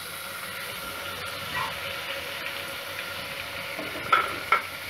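Chopped tomatoes frying in hot oil in an aluminium pressure cooker: a steady sizzle. There are two short, louder sounds near the end.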